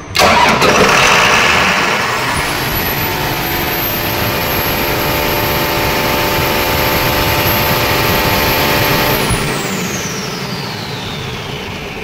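Diesel fire pump engine cranked from its manual-crank switch, starting at once and running. A high whine rises about two seconds in, holds steady, then falls away from about nine seconds in as the engine sound eases off.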